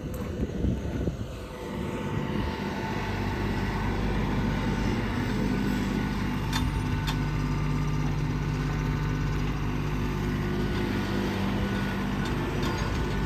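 An engine comes up to speed over the first few seconds, then runs steadily at a constant pitch.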